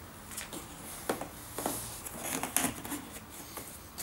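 Cardboard box packaging being handled as hands rummage inside it: a series of short rustles, scrapes and light taps.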